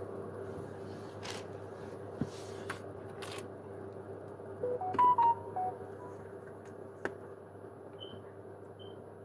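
A short run of electronic beeps at several different pitches, stepping up and then down, about five seconds in, over a steady background hum. There are a few faint clicks before it and two short high beeps near the end.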